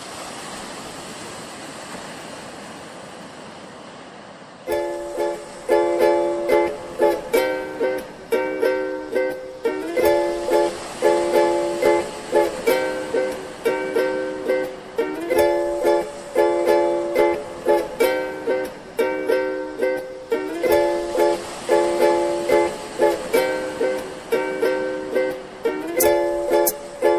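Steady wash of surf and wind for the first few seconds, then background music with a steady strummed rhythm, which takes over about five seconds in.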